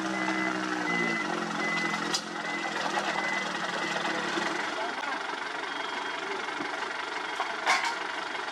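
Diesel construction machinery running at an asphalt paving job, with a reversing alarm beeping until about a third of the way in. The engine's hum fades out soon after, leaving steady machinery noise broken by two sharp clanks.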